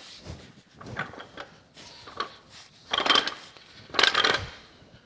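Metal clanking and knocking as a bearing is worked down into its seat in a cast iron cane mill frame: several separate knocks, the loudest about three and four seconds in.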